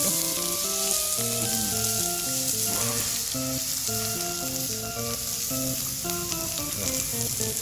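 Beef, mushrooms and sausages sizzling steadily on a hot stone griddle, fat and juices frying in a continuous hiss. A simple tune of short notes plays over it.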